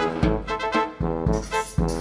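Background music with brass instruments over a steady beat.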